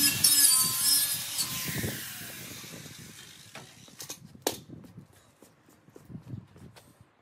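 Angle grinder with a heavy-duty wire brush wheel scouring old paint off a welded metal headboard frame, then switched off and winding down over a couple of seconds. A few light knocks follow as it is set down.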